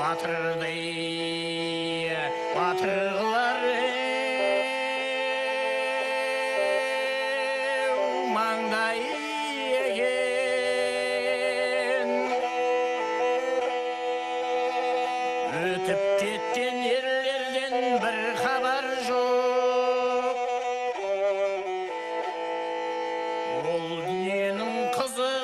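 Ensemble of kobyz, the Kazakh bowed string instrument, playing a melody of long, wavering notes in several parts.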